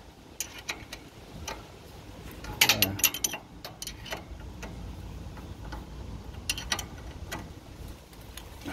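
A 3/4 wrench clicking irregularly on a bolt as it is tightened, with a cluster of louder metal clicks about three seconds in and a few more later. The bolt sets the tine drive chain tensioner on a Toro stand-on aerator.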